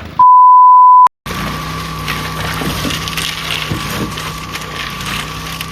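A loud, pure beep of about one second, like an edited-in bleep tone, then a brief dropout. After that, a steady machine noise runs on, with a constant low hum and a faint steady whine.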